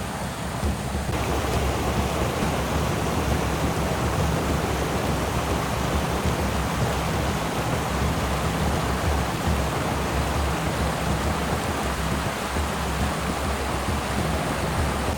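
Rushing creek water over rapids, a steady hiss with a low rumble underneath that grows fuller about a second in.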